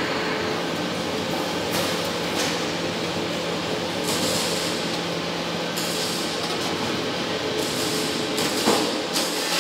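TM2480B-2 vacuum membrane press running with a steady mechanical hum as its worktable travels into the heated press chamber, with two spells of added hiss in the middle and near the end.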